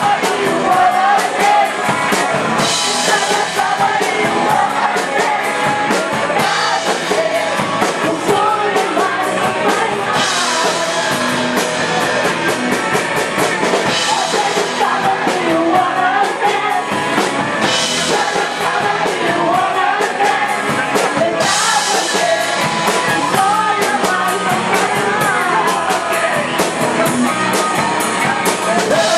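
Rock band playing live, a singer over drums and guitar, with steady cymbal hits.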